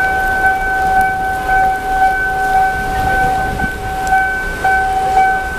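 Railway level-crossing warning alarm sounding: a steady electronic tone that pulses slightly about twice a second, the signal that a train is approaching.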